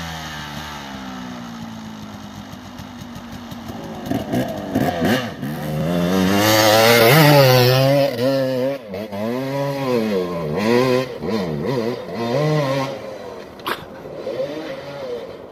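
Dirt bike engine revving hard in repeated bursts, the pitch rising and falling with the throttle as it climbs a steep hill. It is loudest about six to eight seconds in as the bike passes close, then fades as it heads up the slope.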